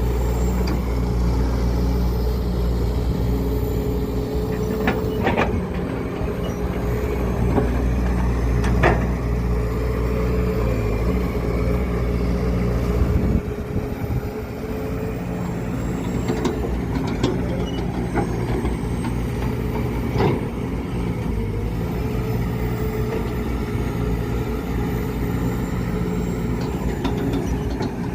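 Excavator's diesel engine running steadily under load, with a steady whine above it and a few sharp knocks here and there. The deep engine note drops about halfway through.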